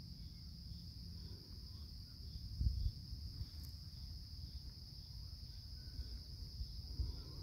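Steady, high-pitched chorus of crickets, with a fainter, evenly pulsing chirp beneath it. Low rumble on the microphone, with a thump about a third of the way in and another near the end.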